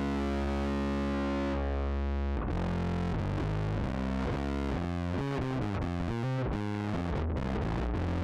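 Electric bass played through an MXR Poly Blue Octave pedal. One note is held for about two and a half seconds, then a run of quicker notes follows.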